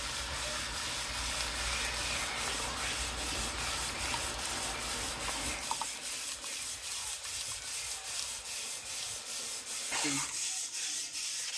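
Spoon stirring and scraping around the bottom of a cooking pot, with a steady hiss.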